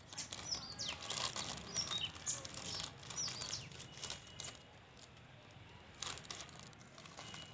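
Plastic snack packet crinkling and crackling as it is cut open with a knife and handled, with short falling bird chirps over it. It goes quieter after about four and a half seconds.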